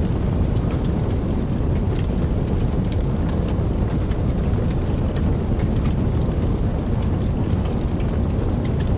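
Campfire burning, with a steady low rush of flames and many scattered sharp crackles and pops from the burning wood.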